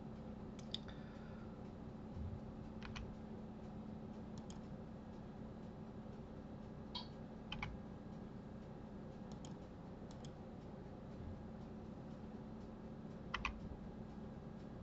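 Sparse computer keyboard keystrokes and mouse clicks, single or in pairs every second or two, over a faint steady hum.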